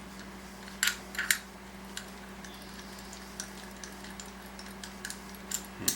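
Scattered small clicks and knocks of metal follow-focus parts being handled, the sharpest about a second in and near the end, over a steady low hum.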